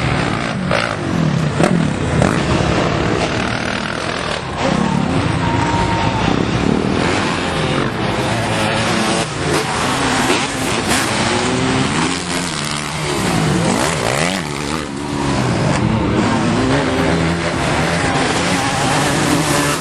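Several motocross dirt bike engines revving up and easing off as they ride the track. The engine notes overlap, their pitch climbing and dropping over and over, with sharp rises and falls about two thirds of the way through.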